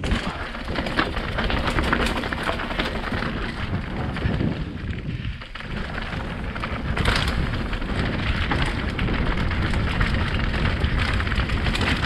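Mountain bike descending a rocky dirt trail: tyres rolling and crunching over stones and leaves, with the bike clattering over bumps and a steady low rumble of wind and rolling noise on the bike-mounted camera's microphone.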